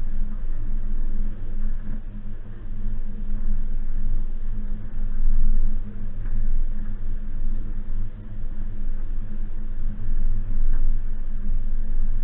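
Suzuki Jimny engine running as the vehicle drives, a steady low drone over a rumble, the level rising and falling a little.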